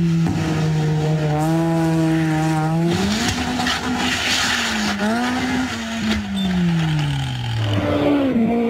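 Rally car engines at high revs: a high steady note, a jump in pitch near three seconds, then an engine note falling away between about six and eight seconds. Around four seconds in comes a burst of scraping, skidding crash noise as a car rolls over.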